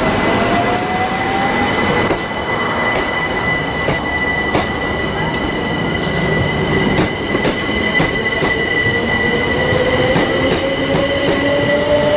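Southern Class 377 Electrostar electric multiple unit pulling away close by. Its traction motors whine, with a tone that climbs in pitch as the train gathers speed, over a steady high whine and a few wheel clicks on the rails.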